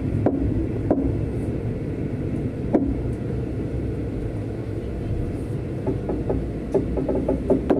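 Passenger train running on the track: a steady low rumble with a few sharp clicks, two near the start and one nearer three seconds in.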